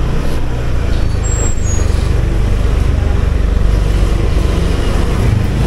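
Motor scooter engine running steadily at low speed, heard from the rider's seat, with a steady low drone and road and wind noise.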